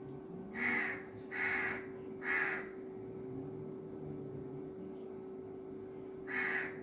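A crow cawing: three harsh caws about a second apart, then a fourth near the end.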